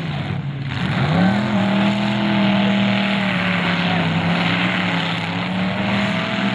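Several demolition derby car engines running hard at high revs, with heavy mechanical din. One engine's pitch sags briefly about half a second in and climbs back up, then holds steady.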